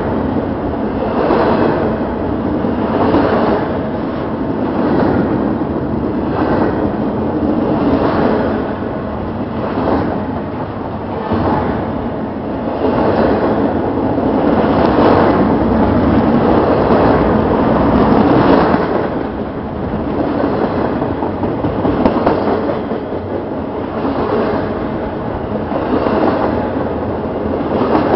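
Double-stack intermodal freight train rolling past on the adjacent track: a loud, steady rumble of steel wheels on rail with a pulse of clatter recurring about every one and a half to two seconds as the cars go by.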